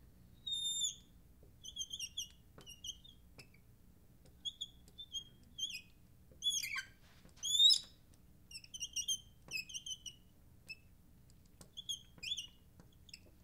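Marker squeaking on the glass of a lightboard as lines are drawn: a run of short, high squeaks and chirps, some sliding up or down, with a few faint ticks between them. The loudest squeaks come about halfway through.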